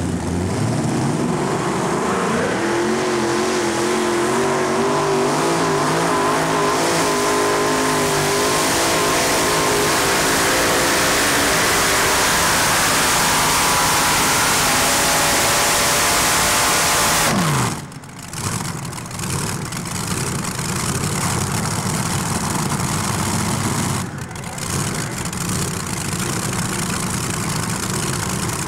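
A multi-engine Modified pulling tractor's supercharged engines run at full throttle through a pull, their pitch climbing over the first few seconds and then held high. About 17 seconds in the throttle is cut and the pitch falls quickly. After that the engines run at a rough, low idle.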